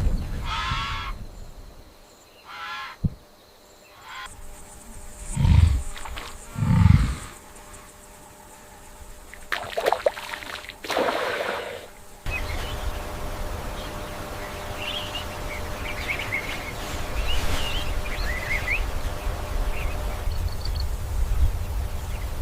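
A string of separate animal calls, two of them loud and low, then an abrupt change to steady outdoor noise with faint chirping.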